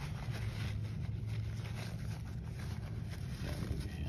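Faint rustling of a paper towel as a conductivity probe is patted dry, over a steady low background hum.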